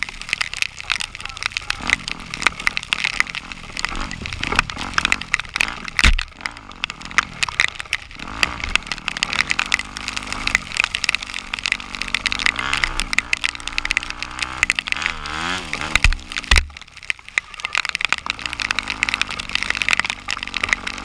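Rain pattering and crackling hard on the camera over an off-road vehicle's engine, which rises and falls in pitch as it revs. Two heavy thumps, about six seconds in and again about sixteen seconds in.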